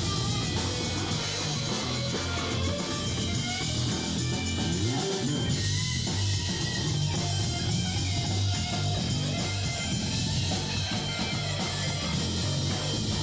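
Band music: electric guitar over a drum kit, with a steady low bass line.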